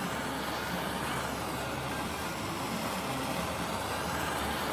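Handheld gas torch burning with a steady hiss, heating a thick aluminium piece to anneal it.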